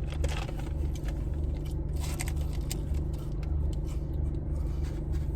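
Steady low hum of a running car with its air conditioning on, with faint crunches of someone chewing a hash brown.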